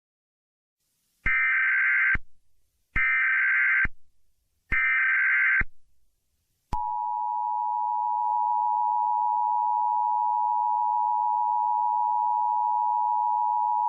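Emergency Alert System SAME header: three short bursts of screeching digital data tones, each about a second long. About seven seconds in they are followed by the steady two-tone EAS attention signal, which announces an emergency alert.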